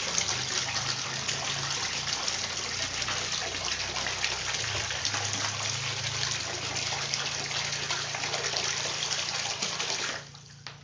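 Small submersible water pump shooting a jet of water that splashes steadily back into a plastic tub, over a low steady hum. The pump is pushing strongly again after its impeller was cleaned. About ten seconds in, the splashing stops suddenly as the pump is switched off.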